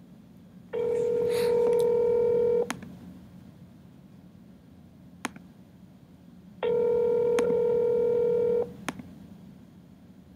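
North American telephone ringback tone on an outgoing call: the line rings twice, each ring a steady two-second tone, four seconds apart, while the call waits to be answered.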